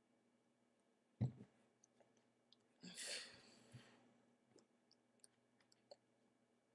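Near silence, broken by a low thump about a second in, a breathy puff of air near the middle, and scattered faint clicks. These are the incidental sounds of a person signing: hand movement and breath.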